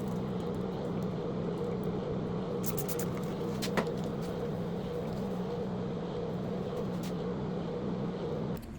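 Electric polishing motor running steadily with a low, even hum and a few light ticks, cutting off near the end.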